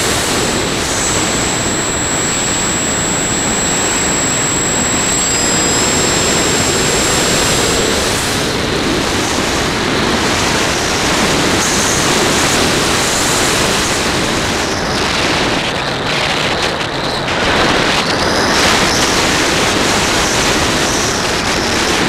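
Steady rush of air and motor noise picked up by the onboard camera of an RC plane in flight, with a thin high whine through roughly the first eight seconds.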